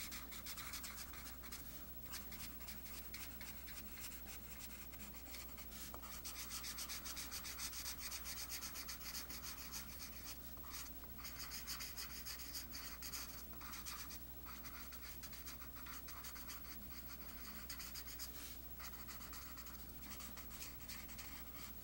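Promarker alcohol marker nib rubbing over card in many short, repeated colouring strokes: a faint, scratchy hiss.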